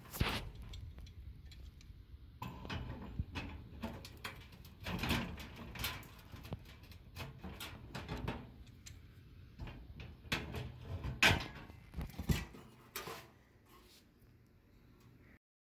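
Irregular metal clicks, knocks and scrapes as tongue-and-groove pliers pry the steel wire grill grate of a Coleman camp stove loose, the grate rods clattering against the stove's sheet-metal box.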